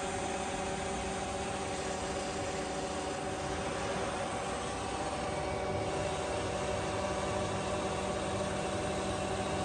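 Freeport SGS-1632AHD hydraulic surface grinder running with its wheel spinning and its table traversing under hydraulic drive at an increased table speed: a steady machine hum with several steady tones and no knocks.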